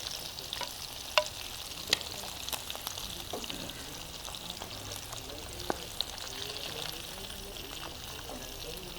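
Chicken pieces frying in hot sunflower oil: a steady sizzle with a few sharp clicks and taps.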